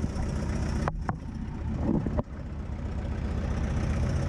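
Open-top 4x4 jeep's engine running with a steady low rumble, heard from the vehicle's side, with a couple of brief knocks about one and two seconds in.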